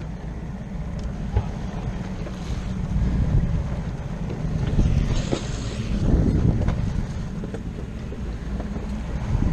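Outboard motor running with the boat under way, wind buffeting the microphone and water rushing past the hull. A few light knocks show up along the way.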